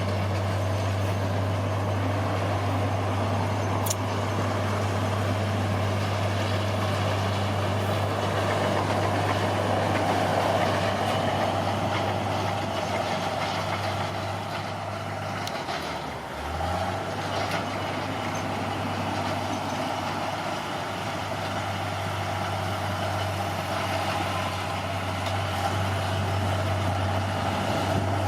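Bulldozer's diesel engine running steadily. A little over halfway through, its note briefly drops and then picks back up.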